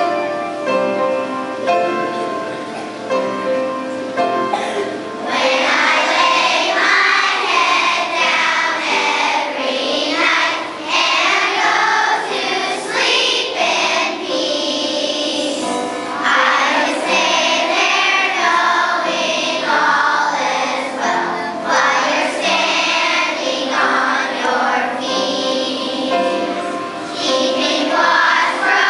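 Children's choir singing a song with piano accompaniment. The piano plays alone for about the first five seconds before the young voices come in together.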